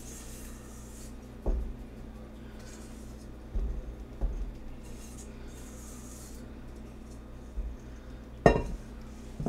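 Stainless steel mixing bowl and silicone spatula knocking against a steel pot as the last of the egg mixture is scraped out: a few light knocks. About eight and a half seconds in there is a sharp metal clank as the bowl is set down on the counter.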